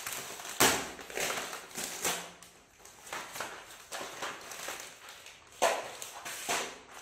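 Cardboard matchboxes handled and set down on a table, a series of irregular knocks and rustles, the sharpest about half a second in.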